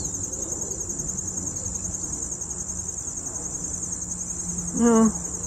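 Insects trilling in a steady, high-pitched, finely pulsing chorus that runs on without a break.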